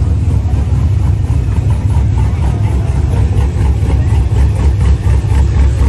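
Car engine running with a steady, low rumble.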